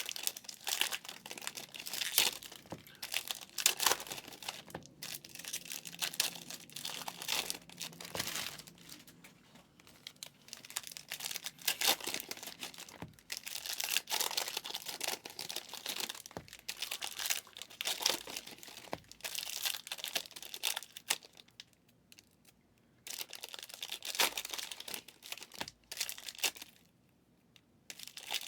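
2023 Panini Illusions card pack wrappers crinkling and tearing as packs are opened and handled, in an irregular run of crackles with two short pauses late on.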